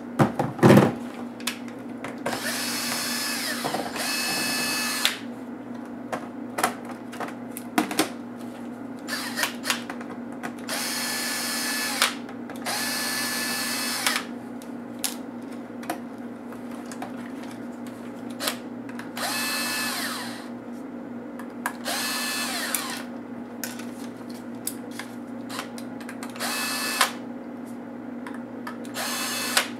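Cordless electric screwdriver backing out laptop case screws in about eight short runs of a second or two, the motor whine rising as it spins up. Between runs come small clicks and knocks of screws and plastic parts being handled, with one heavier thump just after the start.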